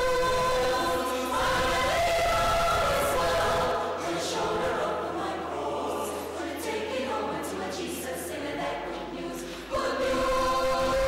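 Mixed youth choir singing a cappella in harmony: held chords, then a softer passage with crisp 's' sounds, and the full choir comes back in loudly near the end.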